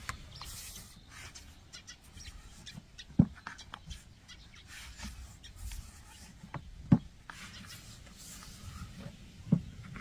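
Long wooden rolling pin working thin khinkal dough on a wooden board: soft rolling and rustling of the dough, with three sharp wooden knocks a few seconds apart as the pin strikes the board.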